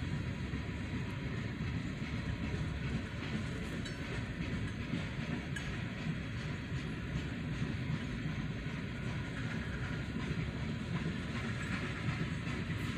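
Loaded freight tank cars rolling past on steel wheels: a steady low rumble of wheels on rail.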